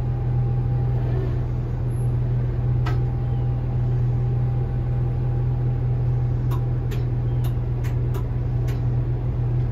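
Steady low hum of running machinery, with a handful of light clicks in the second half.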